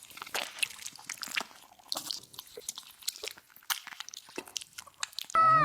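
Quick, irregular crunching and clicking, like chewing something crisp. Just before the end, a short, loud, high-pitched cry falling in pitch.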